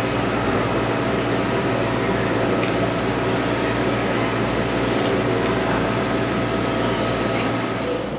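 A steady machine-like hum over a constant rush of air, unbroken and unchanging until it cuts off suddenly near the end.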